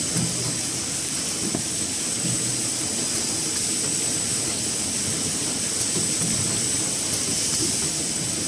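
Kitchen towel roll heat-shrink packing machine running steadily: a continuous hiss with a thin, steady high whine in it, over a low mechanical rumble with small irregular knocks.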